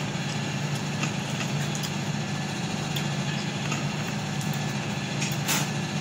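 Steady low mechanical hum with a few faint clicks, and a brief noisy sound about five and a half seconds in.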